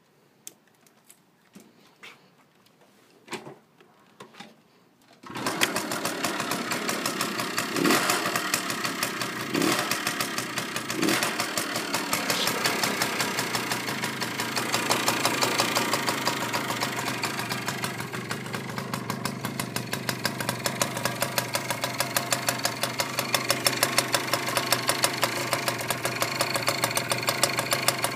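Garelli Monza GT moped's small two-stroke engine starting up: a few clicks, then it catches about five seconds in, is blipped briefly three times, and settles into steady idling.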